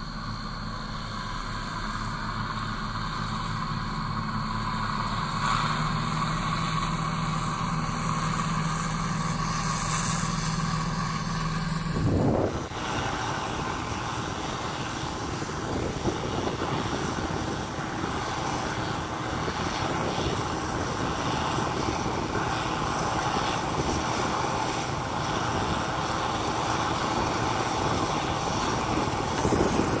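Gleaner combine harvester running steadily in a wheat field with an even engine and threshing hum. About twelve seconds in the sound changes suddenly to a rougher, noisier drone as a combine comes on cutting wheat.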